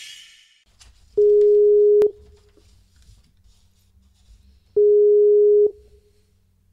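Skype call ringing tone: two long, steady single-pitched beeps of just under a second each, about three and a half seconds apart, over a faint low hum.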